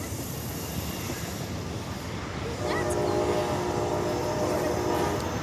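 Train horn blowing a sustained multi-note chord, starting about halfway in, over the steady rumble of the passing COASTER commuter train.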